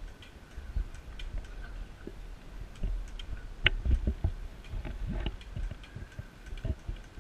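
Bicycle rolling along a concrete road, heard close up: scattered light ticks and clicks from the bike with no steady rhythm, over an intermittent low rumble.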